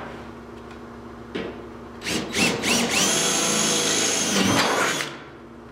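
DeWalt 20V cordless drill boring holes in car-body sheet steel for plug welds: a couple of short blips about two seconds in, then the motor spins up and runs steadily in a whine for about two seconds before stopping.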